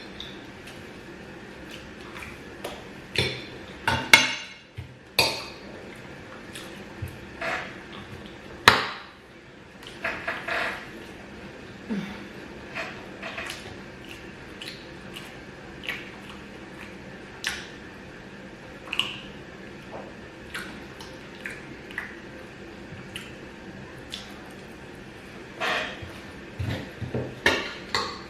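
Spoon clinking and scraping against a plate, in short irregular strokes about once a second, the loudest knocks about four and nine seconds in.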